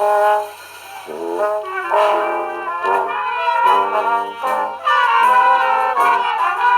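Brass band playing a tune, several brass instruments sounding sustained and moving notes together.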